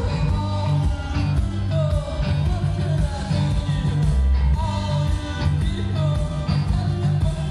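A live rock band playing with a sung vocal over a heavy, pulsing bass and drums.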